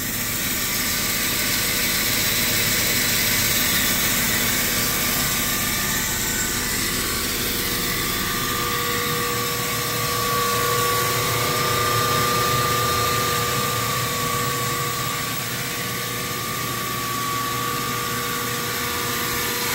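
Biro 3334-4003FH fixed-head meat band saw running with no load. Its three-horsepower, three-phase motor drives the blade and wheels with a steady, very quiet hum, and a thin steady whine joins in about halfway.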